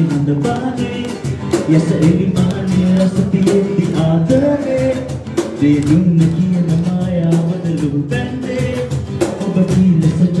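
A man singing a Sinhala song, accompanied by a steadily strummed acoustic guitar.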